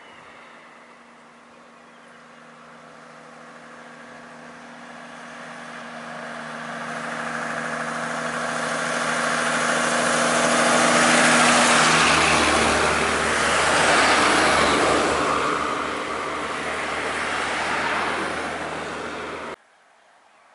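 A bus's engine and tyre noise building as it drives past close by, over a steady engine hum; it is loudest around the middle and stays loud until it cuts off abruptly shortly before the end.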